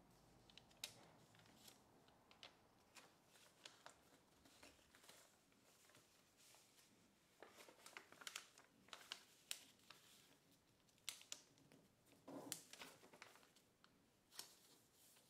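Kraft paper being folded and creased by hand: faint rustling and crinkling with scattered sharp crackles as the creases are pressed in, busier from about halfway through.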